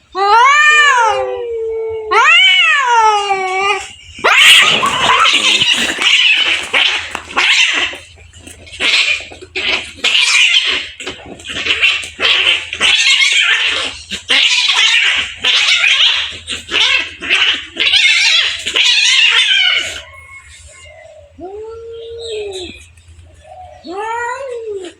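Two cats fighting: a couple of long wavering yowls, then about sixteen seconds of harsh hissing and spitting as they scrap, settling back into shorter yowls near the end.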